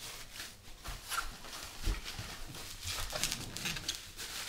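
Plastic bubble wrap crinkling and rustling in the hands, with irregular small crackles and clicks, as a drink can is unwrapped from it.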